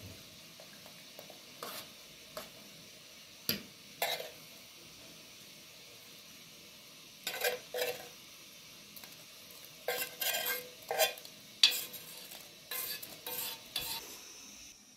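Spoon scraping and clinking against a metal frying pan and steel stockpot as fried onion and tomato paste is scraped into a pot of soup broth: short clinks and scrapes in scattered bursts, the sharpest knock about twelve seconds in.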